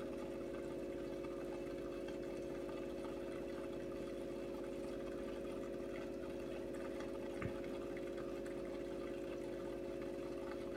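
Aquarium filtration running: a steady pump hum with water trickling and bubbling, and one faint tap about seven and a half seconds in.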